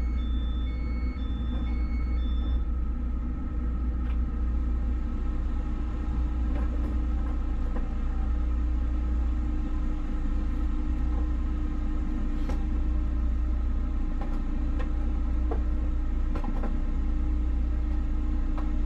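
Steady low rumble of a running engine, with a steady hum and a few faint clicks.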